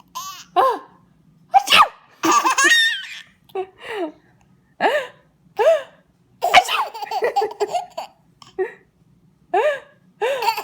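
A woman's fake sneezes, each answered by a baby's laughter, several times over in short separate bursts.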